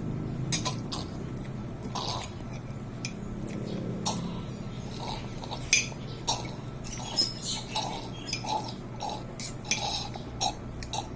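Short, irregular clicks and clinks of utensils against dishes during eating, coming more often in the second half.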